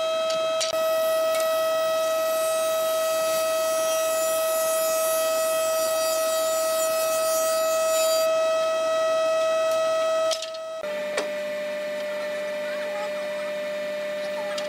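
Industrial jointer running with a steady, high-pitched whine as a hardwood board is planed across its cutterhead; a high hiss rides on top until about eight seconds in. About ten and a half seconds in the sound changes abruptly to a thickness planer running, a steady whine at a slightly lower pitch with a low hum under it.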